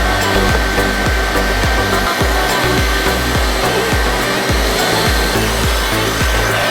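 HYLA EST water-filter vacuum cleaner running steadily, a rushing air noise with a thin high whine, over background music with a bass line and a regular beat.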